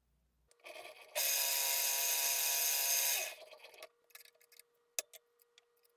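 Manual vertical milling machine with its spindle running: a loud steady machine noise for about two seconds, then a quieter steady hum, with a few light clicks in the second half.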